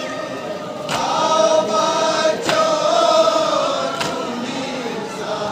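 Crowd of male mourners chanting a noha together, one long wavering sung line, with a unison strike of matam (hands beating on chests) about every second and a half, three times.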